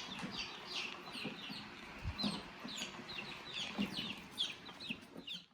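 Chickens clucking and chirping: many short, high, falling calls, several a second. A dull knock comes about two seconds in, and the sound cuts off abruptly near the end.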